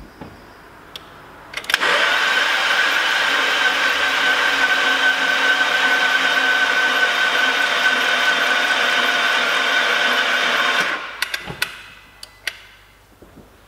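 Starter motor cranking a rebuilt Audi RS3 2.5 TFSI five-cylinder engine with its spark plugs out, spinning it over freely to prime the oil, as a steady even whine. It starts about two seconds in and cuts off after about nine seconds.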